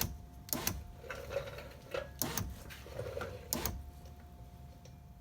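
A few sharp clicks, then two short runs of a power window motor driving the window regulator inside a 2002 Jeep Grand Cherokee door.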